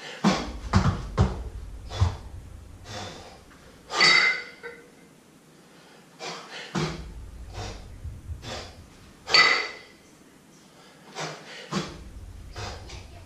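A man breathing hard through sets of double kettlebell jerks. Sharp, forceful exhales come about every five seconds, with short quick breaths between them. A low rumble comes and goes three times.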